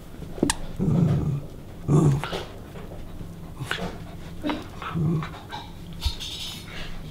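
Poodle × Bedlington terrier cross dogs growling in play while tugging at a hand-held toy, in short growls about a second in, at two seconds and again near five seconds, with a few sharp clicks between.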